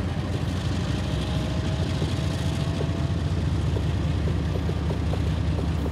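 Diesel freight locomotives running steadily as the train creeps forward, a deep engine rumble with light clicking in the second half.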